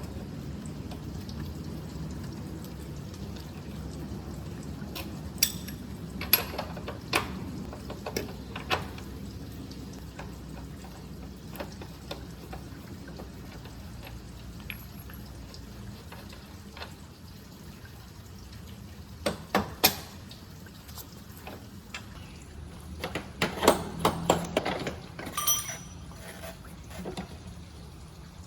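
Hand tools clinking and knocking on metal parts of a motorcycle during wheel removal: scattered sharp clicks, with the busiest clusters about two-thirds of the way in and near the end, over a steady low hum.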